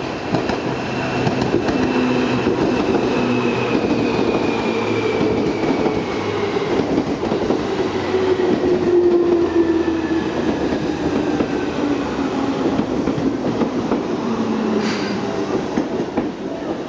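Seibu New 2000 series eight-car electric train (two four-car sets) running past at close range, with steady running noise from the wheels on the rails and a thin whine that falls slowly in pitch as the local service slows into the station. A short high screech sounds about fifteen seconds in.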